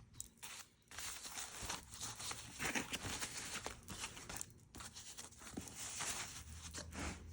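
Packaging rustling, crinkling and tearing in irregular bursts as a handbag is unwrapped by hand.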